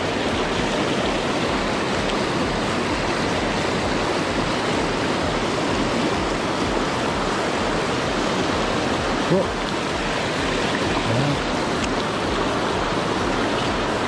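Mountain creek rushing over rocky riffles: a steady, loud rush of water.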